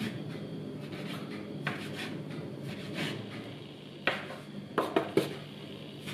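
A plastic dough scraper chopping through soft yeast dough and knocking on the countertop: a few scattered sharp taps, with a quick cluster about four to five seconds in, over a steady low hum.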